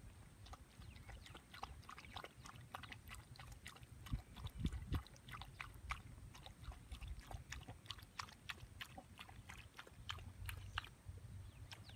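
Shiba Inu lapping water from a pond: a quick, steady run of small wet clicks, about three or four a second.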